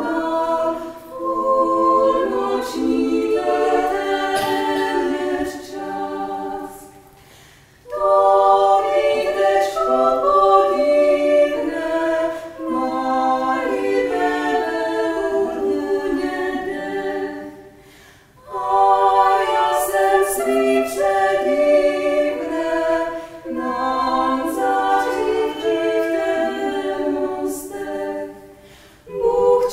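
Small female vocal ensemble singing a cappella in close harmony, with short breaks between phrases about eight, eighteen and twenty-nine seconds in.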